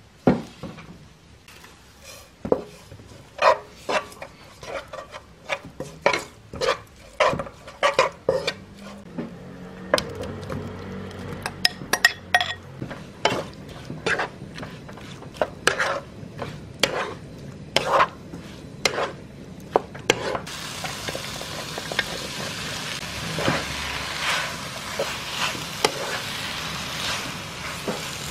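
Utensils knocking and scraping in a nonstick frying pan, first while spicy soy seasoning is mixed, then as fish cakes are stir-fried over high heat with a spatula. A frying sizzle rises under the knocks from about ten seconds in and becomes a steady hiss from about twenty seconds in.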